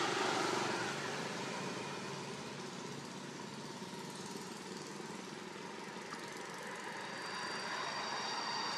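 Engine noise of a passing vehicle, loudest at the start and fading over the first couple of seconds into a steady background hum.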